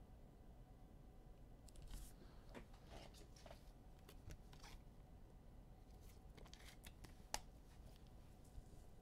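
Faint rustling and light clicks of trading cards and pack wrappers being handled, with one sharper click about seven seconds in.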